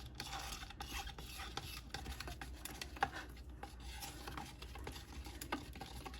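A stir stick scraping and rubbing around a mixing cup as freshly poured ResinCrete is stirred into a runny mix, with faint irregular scrapes and small ticks against the cup.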